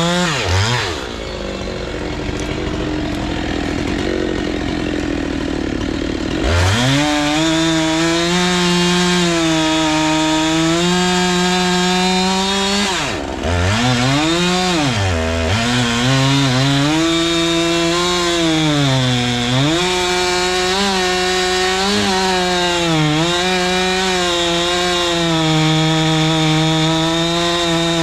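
Husqvarna 390XP two-stroke chainsaw with a 3-foot bar cutting into a large willow trunk. Its revs drop low right at the start, climb back to full throttle about six seconds in, then sag several times under load. The owner suspects the saw is struggling to clear chips from the wet centre of the cut.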